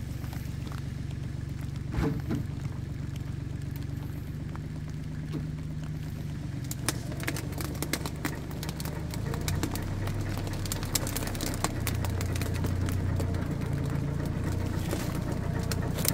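Small diesel farm tractor engine running steadily while hauling a trailer of logs, its note dropping and getting louder about nine seconds in as the loaded trailer moves. A single knock about two seconds in, and scattered clicks and knocks in the second half.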